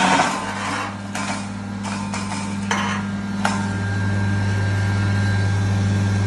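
Electric cashew grinder running with a steady motor hum while cashew pieces rattle and grind through its stainless steel hopper, with a few sharp knocks in the first three seconds or so. The hum grows louder and steadier a little past halfway.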